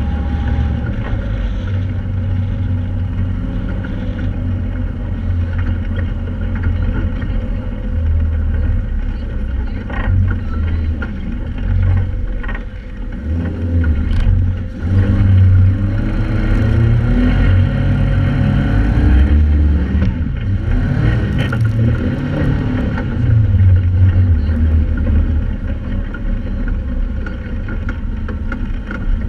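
Joyner 1100 Sand Viper dune buggy's engine running while driving over sand, revving up and down with the throttle, most plainly in the middle of the stretch.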